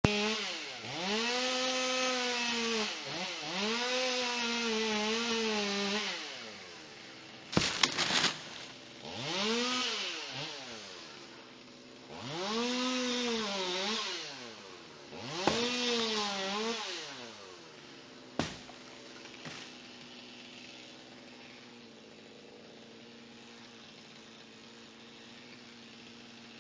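Chainsaw revved hard in five bursts as it cuts, its pitch rising and dropping back between them, with two sharp knocks in the pauses. For the last third it settles to a steady idle.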